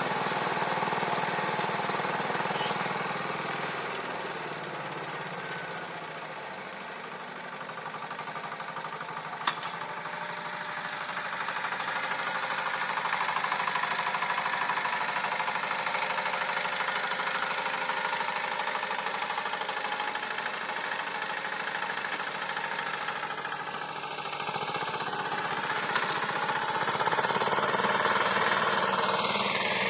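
Walk-behind tractor's small engine running steadily while rotary-tilling garden soil. It grows fainter a few seconds in, then louder again, with a sharp click about a third of the way through.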